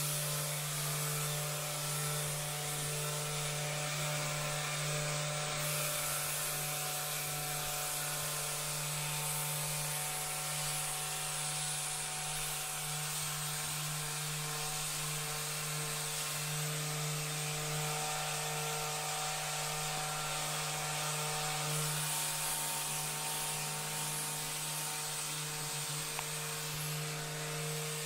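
Handheld rapid release therapy vibration device buzzing steadily with a low, even hum as it is pressed against the shoulder and trapezius muscles.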